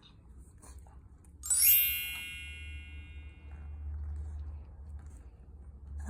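A single bright metallic chime strikes about a second and a half in and rings out, fading over about two seconds, over a steady low hum.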